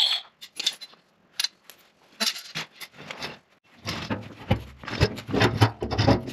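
A cordless cut-off grinder's high whine stops at the very start, followed by scattered clinks of steel chain links. From about four seconds in, a steel drum dolly on casters clatters as it is pushed across concrete with its grounding drag chain, and the steel barrel is set down on it with knocks and thuds.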